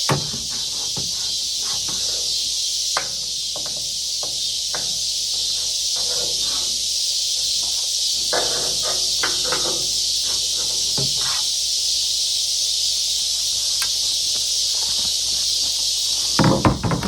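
Steady high-pitched drone of insects outdoors, with scattered light metal clicks and knocks from tool work on the car's hood hinges and a louder clatter near the end.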